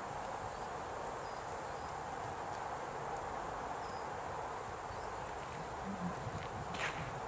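Steady outdoor background noise on an open golf course, with a few faint short high chirps, and a single sharp click a little before the end.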